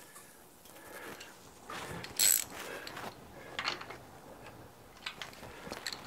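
Scattered sharp metallic clicks and taps as a tool and nut are worked on the starter motor's terminal pillar nut. The sharpest click comes about two seconds in.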